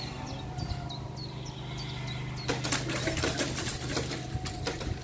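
Electric level-crossing barrier drives running with a steady hum as the booms lower. From about halfway the lowering barriers and their hanging skirts rattle and clack repeatedly. Short high chirps sound in the first half.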